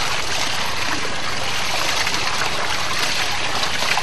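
Water pouring and splashing steadily over the metal paddles of a homemade waterwheel, its water fed round by a pump.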